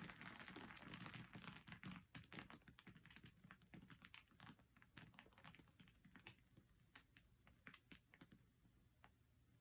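Faint, irregular dripping and pattering of thinned acrylic paint running off the edges of a tilted canvas, the drips thinning out near the end.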